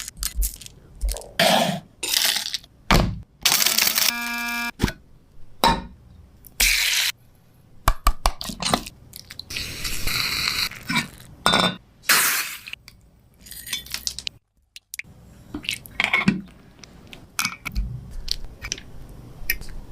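Miniature cookware and utensils clinking, tapping and scraping in a string of short, separate sounds, with a brief pitched tone about four seconds in.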